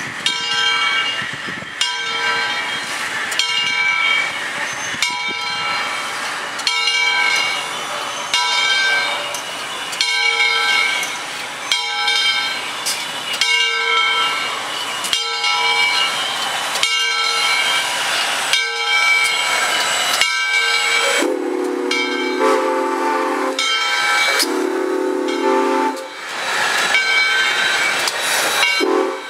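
Southern Railway 2-8-0 steam locomotive No. 630 passing slowly with its bell ringing, about one stroke every second and a half. About two-thirds of the way in, its steam whistle takes over in long blasts with short breaks between them.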